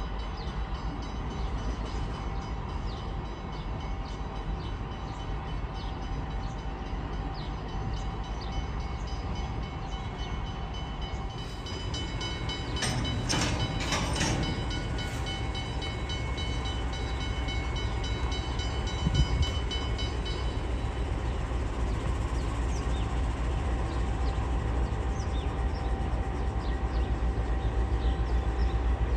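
Diesel train at a station: a steady low engine rumble with steady tones above it. A cluster of clanks comes about halfway through, and the rumble grows louder through the second half.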